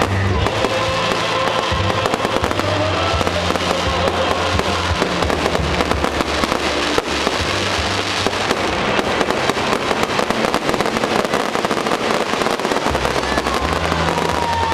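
Fireworks display going off in a rapid, dense run of bangs and crackles, with music playing underneath.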